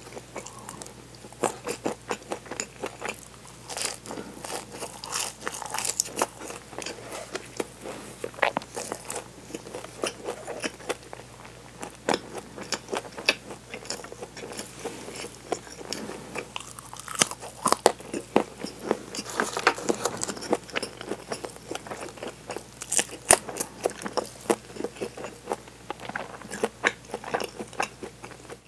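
Close-miked biting and chewing of a flaky, laminated chocolate pastry ring. Irregular crisp crunches and crackles of the layers come one after another, with softer mouth sounds between.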